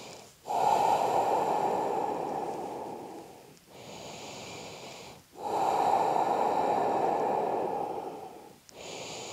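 A person breathing slowly and deeply, close to the microphone. There are two long, louder breaths of about three seconds each, with shorter, softer, hissier breaths between them.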